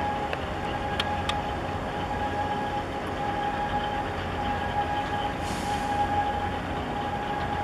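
Container ship's engines and machinery running as it passes close by: a steady low drone with a steady whine over it. Two short clicks about a second in and a brief hiss near the end.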